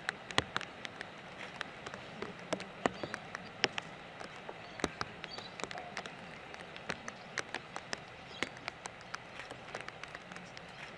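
Raindrops falling close to the microphone: irregular sharp ticks and taps, a few each second, over a steady outdoor hiss.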